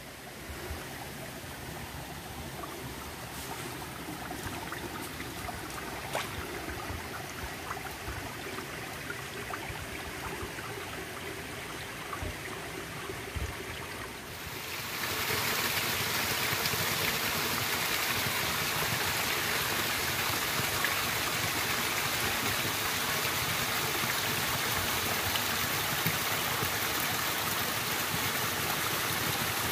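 Small forest stream running and splashing over rocks in little cascades: a steady rush of water that becomes much louder and fuller about halfway through. Before that, fainter running water with a few light clicks.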